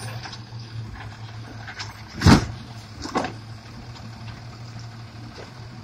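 Diesel engine of an automated side-loading garbage truck running steadily at low speed as the truck creeps up to the bins. A loud short clank about two seconds in, and a smaller one about a second later.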